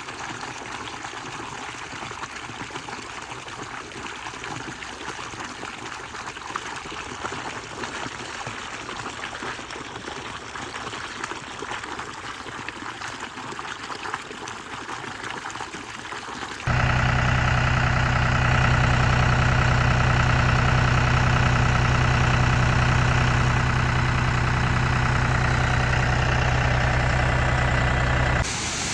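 A steady rushing hiss, then a little past halfway an abrupt switch to a much louder engine running steadily at an even speed, typical of a motorised orchard sprayer applying fungicide.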